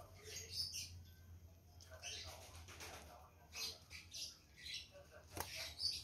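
Spotted dove chicks begging while being hand-fed, with faint, short, high squeaks in little clusters and fluttering wings. There is a sharp tick about five seconds in.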